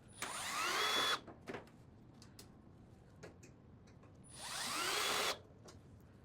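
Power drill running in two short bursts of about a second each, its whine rising as the motor spins up, driving or backing out screws.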